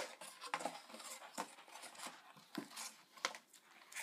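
Small cardboard box and its paper packaging being handled: irregular light taps, clicks and rustles as an item is packed back into the box.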